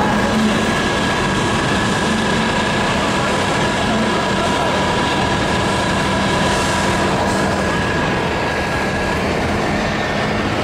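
An engine running steadily: a constant mechanical drone with a thin high whine that stops near the end.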